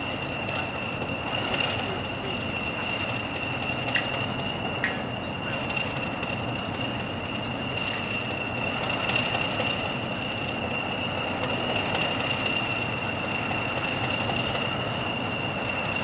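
English Electric Class 40 diesel locomotive idling after a cold start, its turbocharged 16-cylinder engine running steadily under a constant high-pitched turbocharger whistle. Two short clicks come about four and five seconds in.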